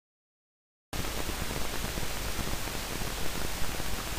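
Dead silence for about the first second, then a steady hiss of recording noise from a low-quality camera microphone cuts in suddenly, with a thin high whine running along it.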